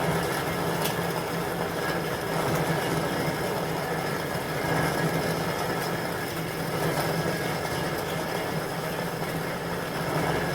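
Armstrong-Blum Marvel No. 8 Mark I metal-cutting bandsaw running steadily, with a constant low hum under a dense mechanical noise.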